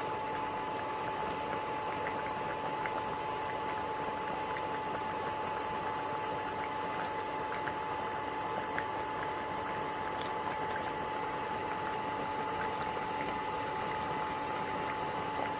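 Tomato sauce and broth with rigatoni coming to a boil in a cast-iron skillet on an induction cooktop: steady bubbling with small scattered pops. A steady high tone sounds underneath.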